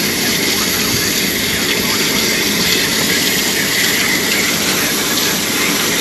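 Garden hose spraying water from inside an air-conditioner condenser out through its plugged coil fins, a steady hiss and splatter as the dirt that was blocking airflow is washed off.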